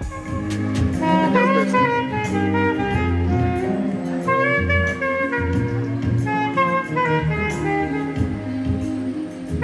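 Alto saxophone playing a jazzy melody of short runs and held notes over a steady low accompaniment.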